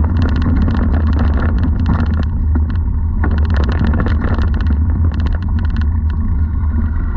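Mountain bike descending a dirt trail over dry leaves: steady wind rumble on the microphone with tyre noise, and repeated bursts of fast ticking, typical of the rear hub's freewheel while coasting.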